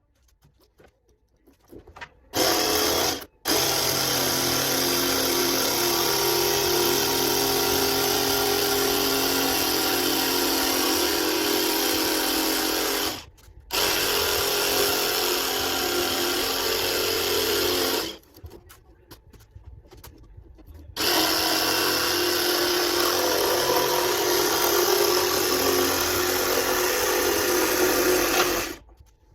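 Jigsaw cutting a circle out of a board. It starts about two seconds in, cuts out briefly just after, then runs steadily in three long stretches with short pauses between them.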